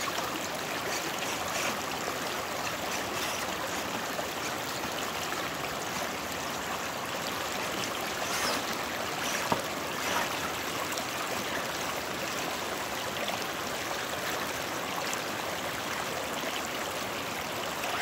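Creek water running steadily over rocks in a shallow riffle, a constant rushing and trickling. One brief sharp click about nine and a half seconds in.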